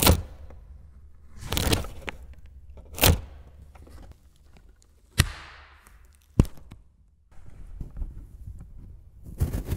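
A stiff handbag being handled close to the microphone: five separate knocks and clicks from its handles and panels, roughly one every second or so, the later ones short sharp clicks, then rubbing and rustling near the end.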